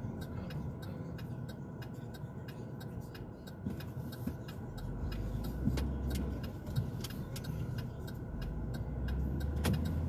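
Inside a moving car: steady engine and road rumble, with a series of light clicks and ticks through it.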